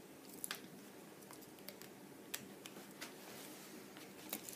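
Faint, irregular clicks and crinkles of hands handling a padded bubble mailer and a plastic card holder wrapped in blue tape, with a few sharper clicks.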